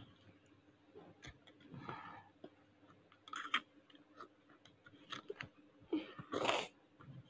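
Children eating from small plastic cups with metal spoons: small clicks and taps of spoons against the cups, chewing, and a few short sipping noises, the loudest near the end.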